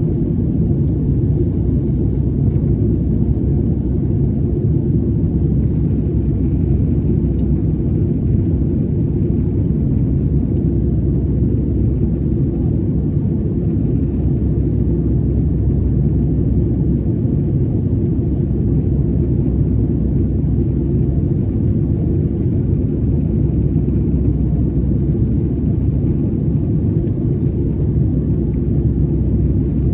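Steady low rumble of a jet airliner in flight, heard inside the passenger cabin: engine and airflow noise.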